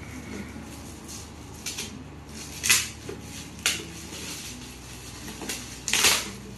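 Metallic foil gift wrap being handled and torn open, in several short crackling rustles, the loudest a little under 3 s in and again near the end.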